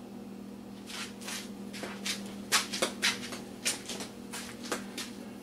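Rummaging through craft paint supplies: a string of light clicks and knocks as bottles and containers are moved about, over a steady low hum.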